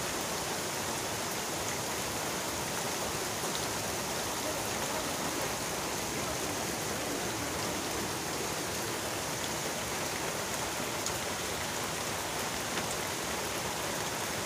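Heavy rain falling steadily on trees and vegetation, with a few sharper drop taps.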